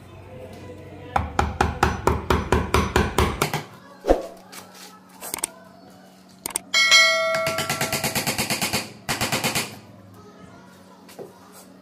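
A notification bell sound effect rings with a pulsing ding for about two seconds. It is set between two quick runs of rapid sharp knocks, about seven a second.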